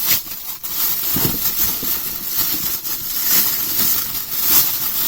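Plastic bags rustling and crinkling irregularly as they are handled and opened.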